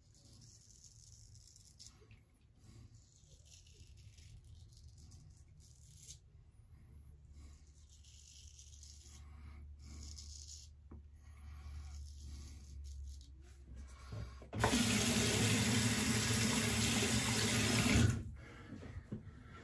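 Faint short scraping strokes of a straight razor across lathered stubble, each about a second long. About fifteen seconds in, a tap runs into a sink, much louder and steady, for about three and a half seconds, then is turned off.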